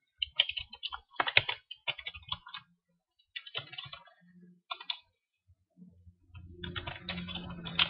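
Typing on a computer keyboard: irregular runs of key clicks with short pauses between them. A low hum comes in over the last second and a half.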